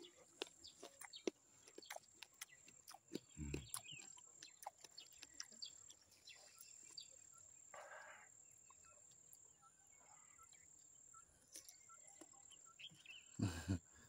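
Quiet outdoor ambience with a steady high insect whine and scattered faint clicks, and a short crunch of teeth biting into a raw guava about eight seconds in.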